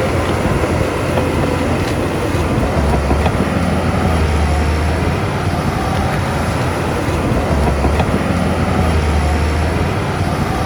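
Heavy diesel earthmoving machinery running steadily with a deep, low rumble.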